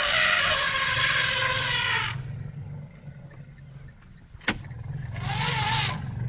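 African elephants trumpeting twice, a long blast of about two seconds at the start and a shorter one about five seconds in, as the herd with calves reacts to African wild dogs at the water. A steady low engine hum runs underneath, with a single sharp click a little after the middle.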